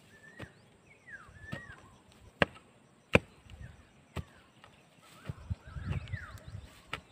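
A bladed hand tool chopping into dry red clay soil in about half a dozen sharp strikes at uneven intervals, the strongest two a little before halfway through: digging a planting hole for a tree seedling.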